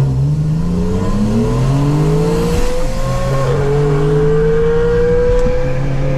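Turbocharged Subaru EZ30 flat-six accelerating hard on a rolling pull. Its pitch climbs, dips briefly about three and a half seconds in, then keeps climbing.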